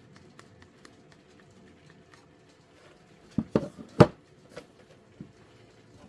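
Hard objects being handled: light scattered ticks, then a quick cluster of sharp knocks about three and a half to four seconds in, with a couple of smaller knocks after.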